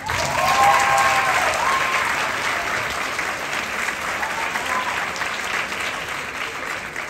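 Audience applauding. It starts abruptly, is loudest about a second in, and slowly dies down.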